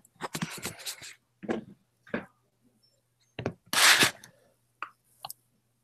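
Handling noise from someone moving right against a laptop's microphone: a string of short knocks, scrapes and rustles, the loudest a rustling burst about four seconds in, with the call's audio dropping to silence between them.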